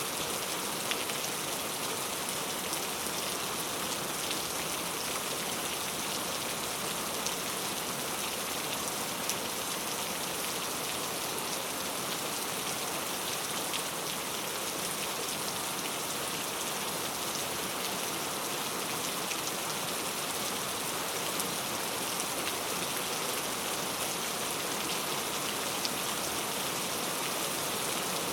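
Steady rainfall with drops pattering on a surface, an even hiss with scattered small drop ticks.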